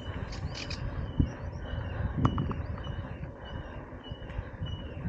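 Scott Genius 920 mountain bike rolling along a dirt trail: a steady low rumble of tyres and wind on the helmet camera's microphone, with two sharp knocks from the bike over bumps about a second and two seconds in. A high, short chirping call repeats in the background.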